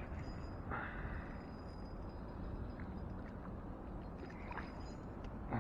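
Steady low rush of outdoor noise, river water and wind on the microphone, with a brief swish about a second in.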